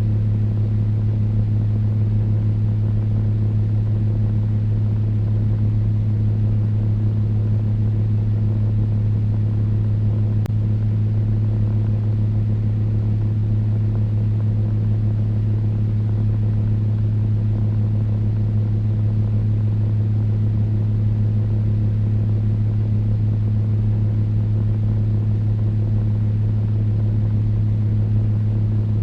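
Electric fan running steadily: a low hum with a few fainter higher tones over an even rush of air, unchanging throughout.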